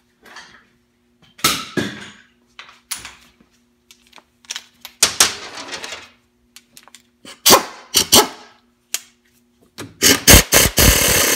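Metal tools and transmission parts clanking and knocking on a workbench, several sharp separate knocks. Near the end a pneumatic tool starts with a quick burst of rapid hammering, then runs steadily.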